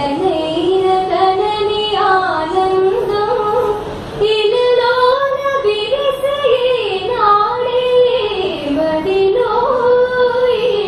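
A young woman singing solo into a microphone: a slow melody in a high voice, with long held notes that waver and slide between pitches. No accompaniment is apparent.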